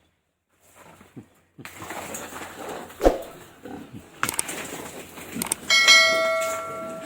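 Knocks and handling noise with one loud thump, then a metal object struck once and ringing for about a second with several steady tones before fading.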